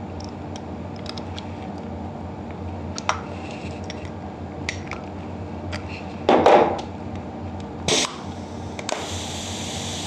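Small metallic clicks and taps of an adjustable spanner and brass exhaust flow control regulators being handled on a pneumatic valve body, over a steady low hum. Two short, louder bursts of noise come about six and a half and eight seconds in, followed by a faint high hiss.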